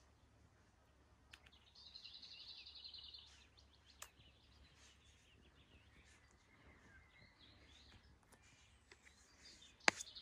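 Faint outdoor ambience with a small songbird singing a fast trill of repeated high notes for about a second and a half, a few scattered faint chirps, and one sharp click near the end.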